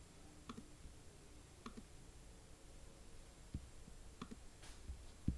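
Faint computer mouse clicks: about five separate clicks at irregular intervals, the last one the loudest.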